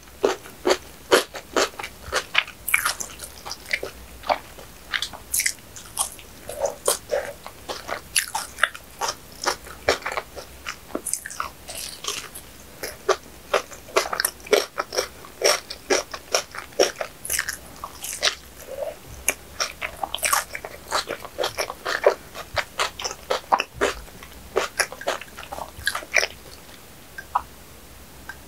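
Close-miked biting and chewing of a flaky pastry, with many sharp, crisp crunches from its crust, several a second. The crunching thins out near the end.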